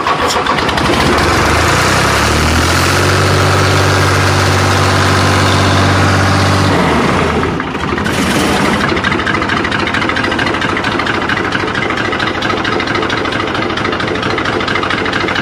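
New Holland tractor's diesel engine running just after a hard start. It is held at raised revs for several seconds, drops back sharply about halfway through, then settles into a steady, even idle.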